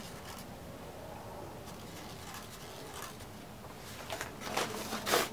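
Handling noise: a few short scraping rustles starting about four seconds in, the loudest just before the end, against a faint room background.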